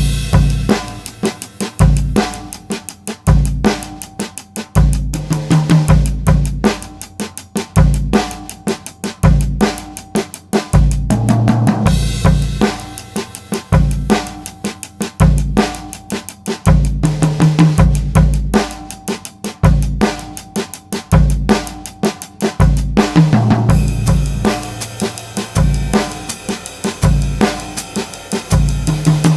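Pearl Midtown compact drum kit played with maple sticks: a steady groove of 16-inch bass drum, 13-inch snare and cymbals, starting abruptly.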